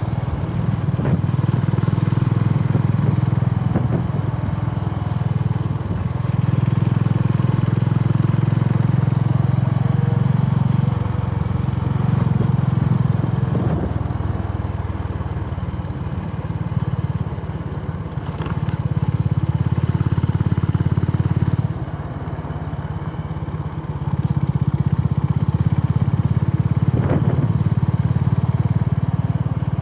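Honda CB350RS's air-cooled single-cylinder engine running while riding, its note loud and steady, then falling back and picking up again several times as the throttle is eased off and reopened.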